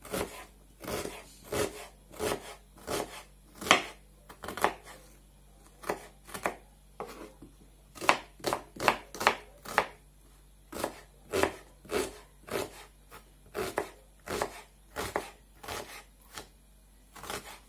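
Kitchen knife chopping an onion on a wooden cutting board: sharp, irregular knife strokes, roughly one or two a second, with short pauses between runs.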